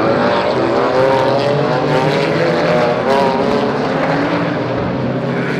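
GT4 race car engines running hard on track, several engines heard together, their pitch rising and falling as they accelerate and change gear.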